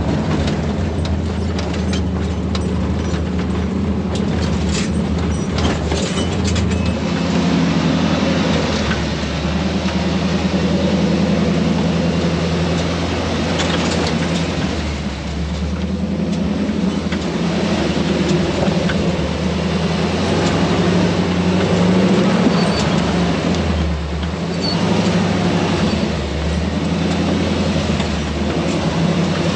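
Offroad tow truck's engine running at low speed, its note rising and falling as it crawls over rough rock, with scattered knocks from the tyres and chassis.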